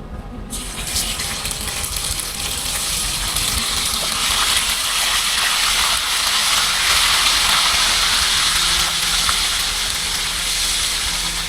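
Sliced pork sizzling in hot oil in a pan for a stir-fry. The sizzle starts suddenly about half a second in and holds steady.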